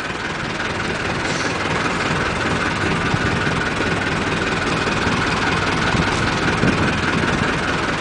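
Fishing boat's engine idling steadily, an even running sound with a constant whine in it.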